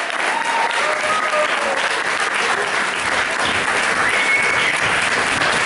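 Audience applauding steadily as the dancers return for a curtain call.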